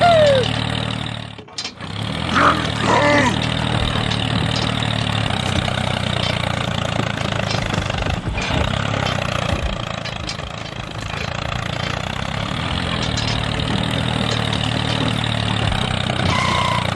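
Tractor engine running steadily, with a brief break about a second and a half in.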